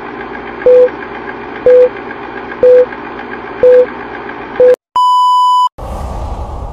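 Old-film countdown leader sound effect: a steady film-projector whir with a short beep once a second, five beeps in all. A longer, higher beep follows about five seconds in, and then a low rumble starts.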